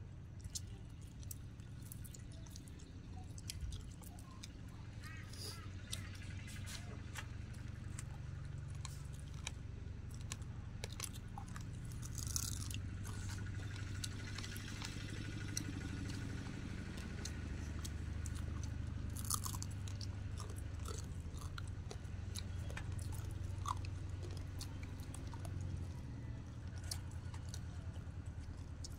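Several people chewing and gnawing grilled chicken legs close to the microphone, with scattered sharp clicks and crunches, over a steady low hum.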